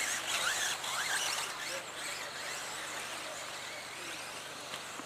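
Electric 1:10 off-road RC buggies racing: brushless motors whining, the pitch rising and falling as the cars accelerate and brake through the corners, mostly in the first two seconds, over a steady hiss.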